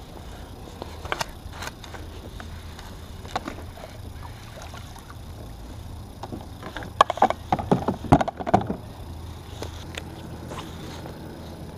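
Gear being handled on a plastic kayak: scattered sharp knocks, then a burst of rapid knocking and rattling about seven to nine seconds in, over a steady low rumble.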